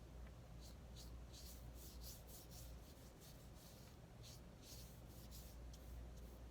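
Faint strokes of a watercolor paintbrush brushing across paper: short quick swishes, about three a second, that stop about six seconds in, over a low steady hum.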